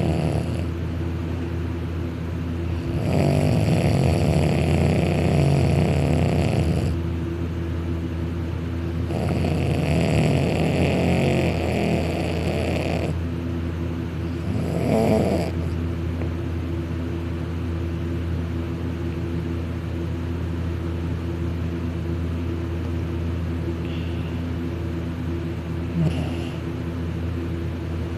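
A sleeping person snoring very loud. There are two long snores of about four seconds each, a short one a couple of seconds later, and a faint one near the end, over a steady low hum.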